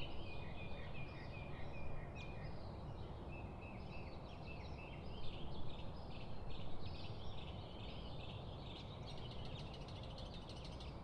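Several songbirds singing and chirping at once in quick overlapping phrases, over a steady low background noise.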